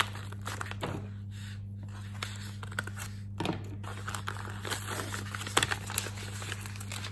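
A yellow paper mailer being torn and pulled open by hand, with irregular crinkling and tearing crackles. A steady low hum runs underneath.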